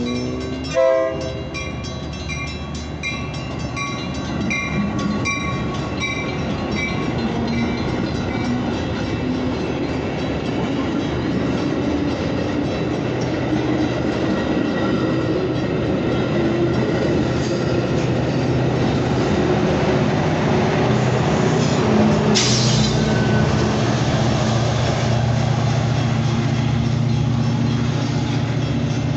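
Metra commuter train of bilevel passenger cars rolling past, its wheels rumbling and clacking on the rails, with a short horn blast about a second in and a bell dinging in a steady rhythm for the first several seconds. In the last third the drone of the pushing diesel locomotive's engine grows as it passes, with a short loud hiss near the end.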